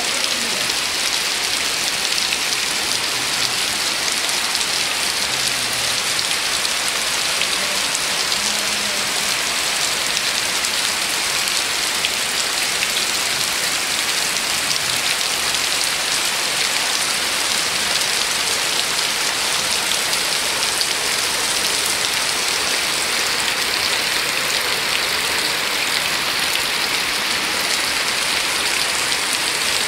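Steady rain falling on palm trees and wet, puddled ground: an even hiss that keeps up without a break.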